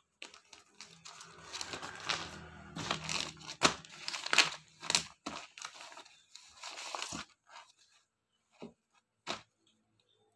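Clear plastic garment bag crinkling and rustling with sharp crackles as an embroidered suit is handled and slid out of it. The rustling dies away after about seven seconds, leaving a couple of single clicks.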